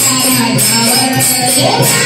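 Music from a Marathi devotional song: jingling percussion strikes keeping a steady beat over a sustained melody, with a short upward glide in the melody near the end.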